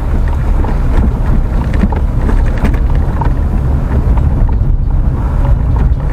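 Road noise inside a car driving on a wet unpaved rural road: a loud, steady low rumble of tyres and engine, with scattered small ticks over it.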